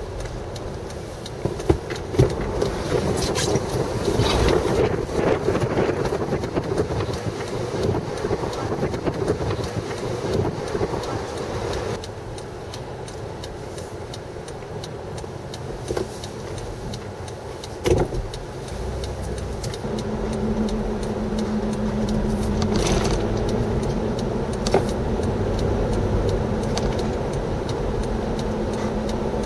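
A car's engine and road noise heard from inside the vehicle, with a steady hum setting in about two-thirds of the way through and a few sharp knocks.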